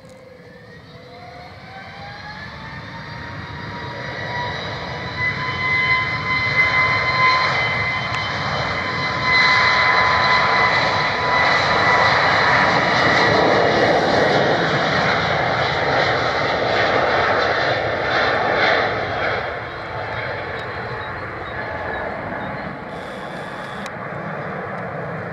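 Airbus A320neo turbofan engines at takeoff power: a whine that rises in pitch over the first few seconds as they spool up, then a loud steady engine noise through the takeoff roll and liftoff. It is loudest around the middle and eases off near the end as the jet climbs away.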